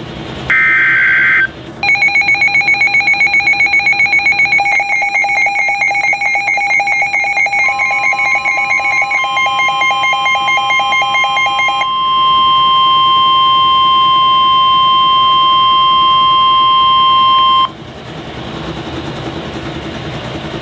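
Weather alert tones for a Severe Thunderstorm Warning. A short warbling burst of digital SAME header data comes first. Then a weather alert receiver sounds a rapid pulsing electronic alarm beep, joined partway through by the steady 1050 Hz NOAA Weather Radio warning tone, which carries on alone after the beeping stops and cuts off sharply, leaving faint radio hiss.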